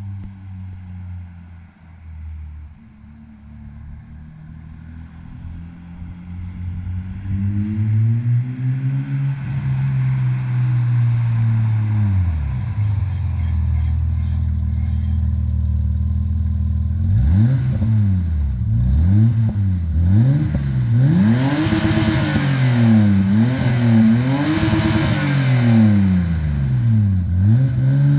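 Stock BMW E34 525's M20B25 2.5-litre straight-six idling, then revved: one slow rise and fall in pitch partway in, then a run of quick blips, each rising and dropping back, from about two thirds of the way through.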